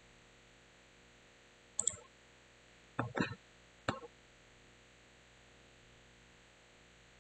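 Computer mouse clicking a few times: a pair of sharp clicks about two seconds in, then a short cluster and a single click a second or so later, over a faint steady hiss.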